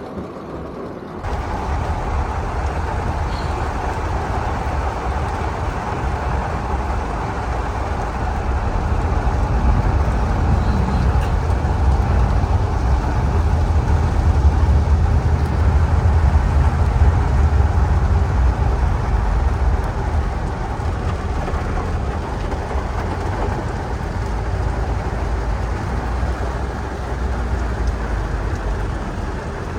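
Steady rumble and rush of a car in heavy rain, with rain on the body and the vehicle's running noise mixed together; it sets in abruptly about a second in.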